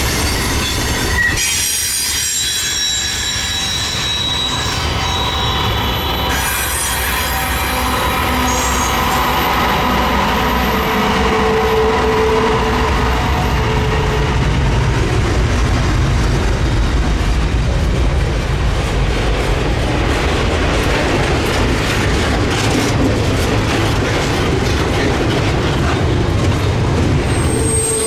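Norfolk Southern freight train rolling past with a steady rumble of cars on the rails. High-pitched wheel squeal rings out over roughly the first ten seconds.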